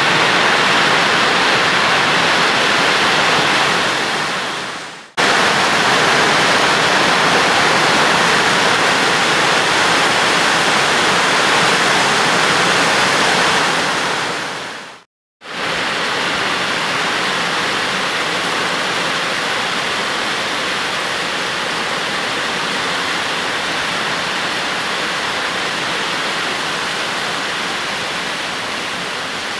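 Heavy rain pouring down in a steady, loud rush. It cuts out briefly twice, about five and fifteen seconds in, and is a little quieter after the second break.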